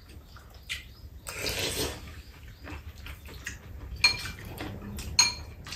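Metal spoons and chopsticks clinking against ceramic bowls during a meal, with two sharp ringing clinks in the second half. A brief noisy sound of eating comes about a second and a half in.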